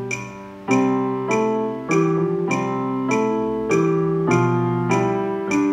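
Digital piano playing a beginner duet: melody notes over a teacher's accompaniment chords, struck at a steady beat of about one every 0.6 seconds. Just after the start a held note fades before the playing picks up again.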